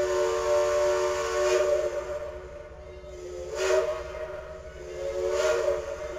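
Multi-chime steam locomotive whistle sounding a long chord. It swells louder three times, with a rush of steam at each swell, as the whistle is worked.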